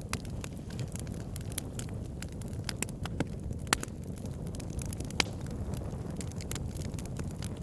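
Campfire burning with a steady low rumble of flame and irregular sharp crackles and pops from the burning wood, a few louder snaps standing out.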